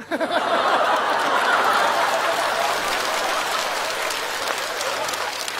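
Studio audience applauding and laughing, starting suddenly and slowly tapering off.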